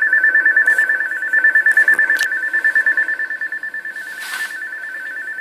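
Electronic two-tone warbling tone, trilling rapidly and steadily between two close high pitches without a break, a little softer in the second half.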